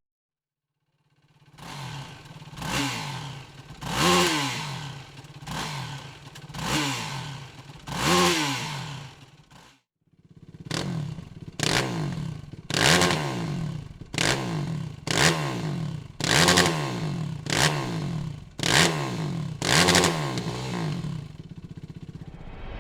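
Yamaha YFZ 450R quad's single-cylinder four-stroke engine through a Dominator aftermarket exhaust, idling and blipped repeatedly. It starts after a second or so of silence with about five spaced revs, breaks off briefly about ten seconds in, then returns with quicker revs about once a second.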